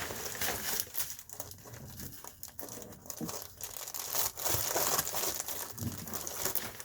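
Reflectix foil-faced bubble insulation crinkling as it is handled, with irregular sharp crackles.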